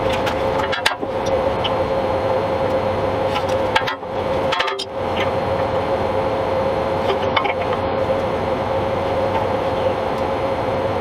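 Steady workshop machine hum, fan-like, with a constant mid-pitched tone, and a few faint taps of hand tools on the tack-welded steel bushings as they are adjusted into position.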